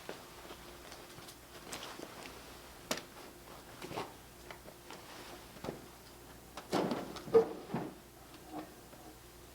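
Scattered clicks and light knocks of an LG stand air conditioner's plastic parts being handled during repair, with a busier run of knocks and one sharp click about seven seconds in.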